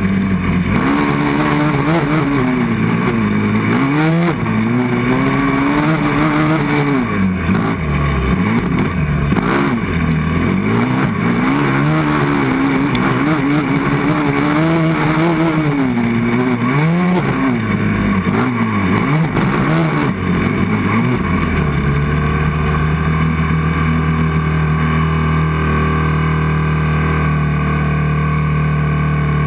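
Yamaha 450 sport quad's single-cylinder four-stroke engine revving up and down repeatedly while ridden, then settling to a steady idle for the last several seconds.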